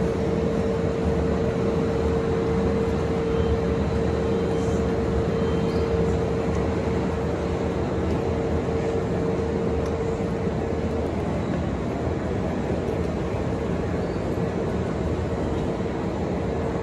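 Steady hum and rumble of a Kintetsu electric train standing at the platform, with a steady tone from its onboard equipment that weakens about eleven seconds in.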